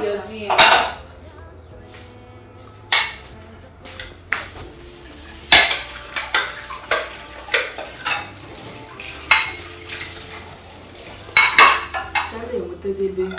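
Metal utensils clinking and scraping against pots and dishes while a pot is stirred, in scattered sharp knocks every second or two.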